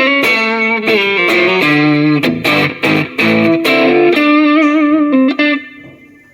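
Boult ST12 Strat HSS electric guitar through a Mooer GE150 Pro multi-effects unit, playing a single-note lead solo on a boosted clean tone. Quick picked notes run into a few notes bent with wide vibrato, then a held note fades away near the end.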